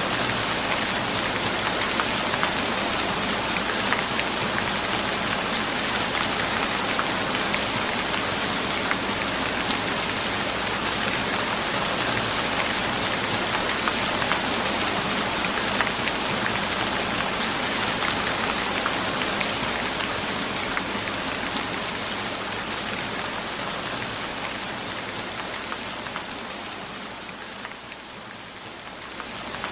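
Steady rain falling, a dense hiss full of small drop patters. About two-thirds of the way through it slowly fades lower, then rises again just at the end.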